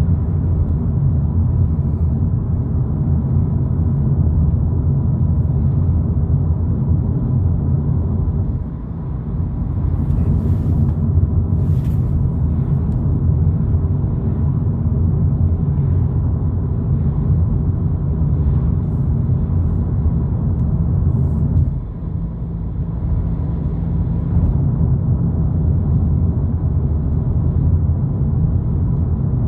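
Steady low rumble of engine and road noise heard inside the cabin of a moving Volkswagen Polo GTI. It eases off briefly about 9 seconds in and again about 22 seconds in, with a few light clicks around 10 to 12 seconds in.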